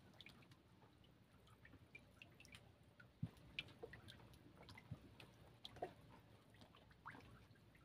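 Faint, irregular drips and small splashes of water.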